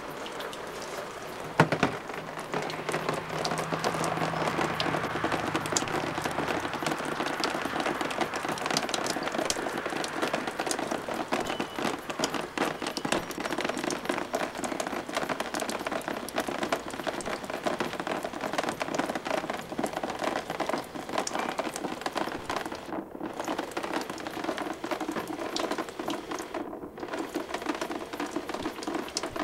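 Water leaking down from the balcony above, where frozen pipes gave way, pattering and splashing steadily onto surfaces and into a plastic tub. A single sharp knock comes about a second and a half in.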